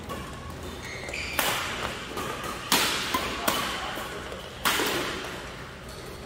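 Badminton rackets striking the shuttlecock in a doubles rally: about five sharp smacks, roughly one a second, one of them softer, each ringing briefly in the large hall.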